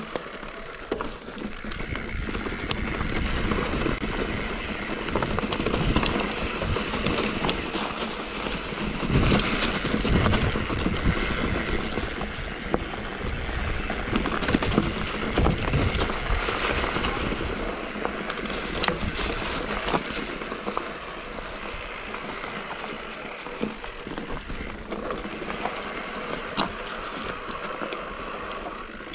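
Mountain bike descending a rough trail, heard from the rider: a constant rush of tyres on dirt and stones and wind on the microphone, with the bike rattling and knocking over bumps, most heavily in the middle stretch.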